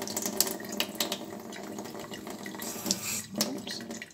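Tap water running into a stainless-steel sink, splashing irregularly over hands that turn a bar of soap under the stream.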